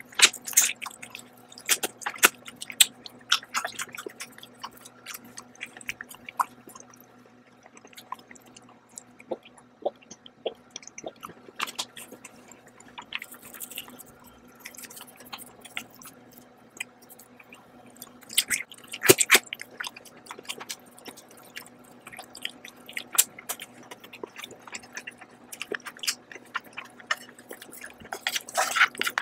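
Close-up mouth sounds of a person eating noodles and chicken: wet chewing and smacking clicks in irregular clusters, the loudest just under twenty seconds in.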